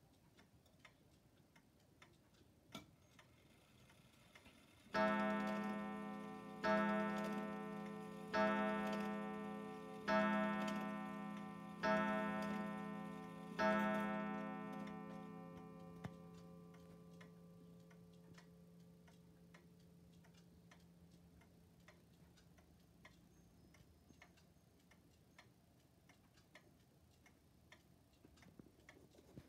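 Pendulum regulator wall clock ticking, then striking the hour six times for six o'clock, one strike about every 1.7 seconds. Each strike is a ringing tone that dies away, and the last rings on for several seconds before only the ticking is left.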